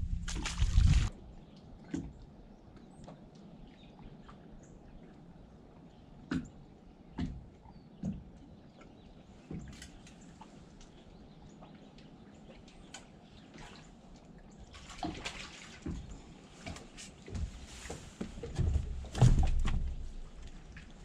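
A crappie splashes into the lake about a second in. Then there is quiet lapping water with scattered knocks and clicks from the boat and fishing tackle, and a louder splash near the end as another crappie is pulled from the water on the line.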